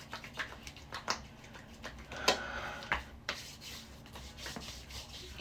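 Scattered small clicks and soft rubbing as a bottle of body oil is handled and the oil is rubbed onto skin, the loudest click about two seconds in.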